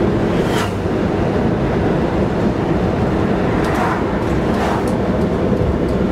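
Steady low road and engine rumble of a car driving, heard from inside the cabin. Oncoming traffic swishes past twice: a motorcycle just after the start and a car about four seconds in.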